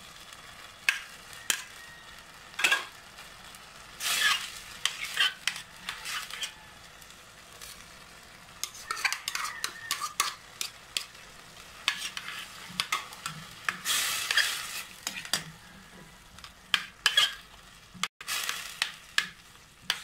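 Julienned bell pepper and carrots tipped into a stainless steel pan of simmering, cornstarch-thickened sauce and stirred in. A utensil scrapes and clinks against the pan in short bursts over a steady sizzle.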